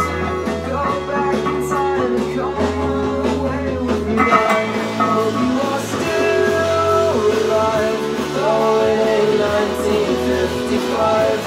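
Background music: a rock song with singing and guitar.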